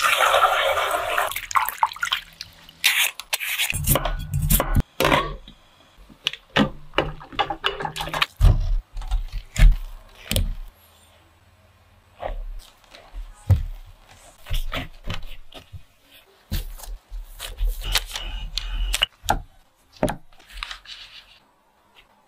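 Water pouring into a glass bowl of whole potatoes for a second or so, followed by a run of irregular knocks, taps and short scrapes of utensils and food against the bowl as the potatoes are prepared.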